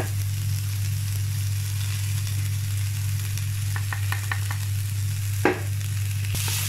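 Long beans and crushed coconut mixture sizzling in a non-stick pan as a spatula stirs them, over a steady low hum. A few light scrapes come around four seconds in, and a sharp knock of the spatula on the pan about five and a half seconds in.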